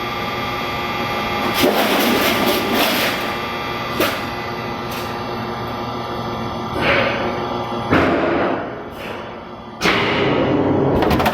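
Press machine running with a steady mechanical hum, struck through by several heavy thumps a few seconds apart.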